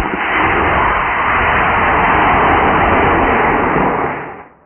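Model rocket's F67-4 solid motor firing at liftoff: a loud, steady rushing roar of exhaust that fades away about four seconds in as the rocket climbs.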